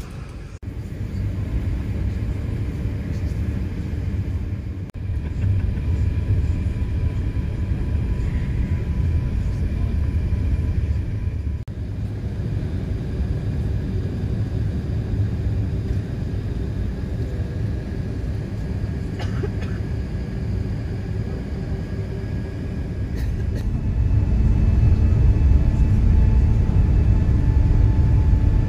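Steady low rumble of an Airbus A380's engines, heard inside the passenger cabin, growing louder near the end.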